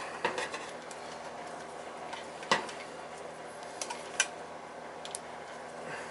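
Scattered sharp clicks and taps of tools and parts being handled while a boiler control is wired, the loudest about two and a half seconds in, over a steady low hum.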